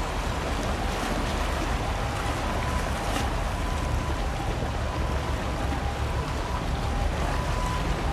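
Harbour tug running at speed: a steady low engine rumble under the even rush of water from its bow wave and wake.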